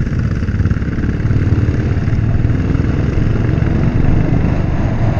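Motorcycle engine running steadily on the move, its rapid firing pulses mixed with wind rush over the rider's camera microphone.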